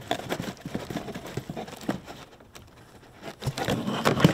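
Screwdriver turning a self-tapping screw into a soft-top frame bracket, making small clicks and scrapes. Louder knocks and rustling come near the end as parts are handled over cardboard boxes.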